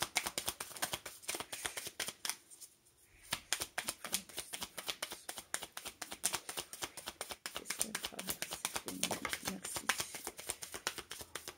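A deck of cards being shuffled by hand: a fast, uneven stream of soft card clicks and slaps, with a short pause about two seconds in.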